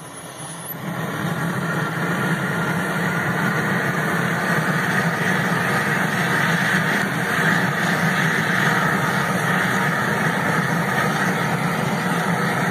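Small corded electric blower running steadily, forcing air into a freshly lit kindling fire to get it going. It comes up to speed about a second in and then keeps an even whir and rush of air.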